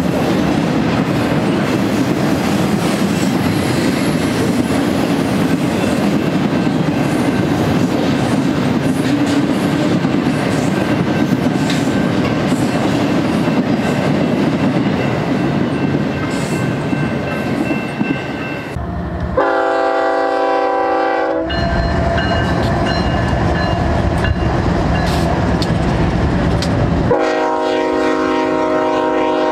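A double-stack intermodal train rolls past with steady wheel and rail noise. After a sudden change about two-thirds of the way in, a BNSF GE ES44C4 locomotive sounds its air horn, several notes at once, in two long blasts, with its diesel engine rumbling between them.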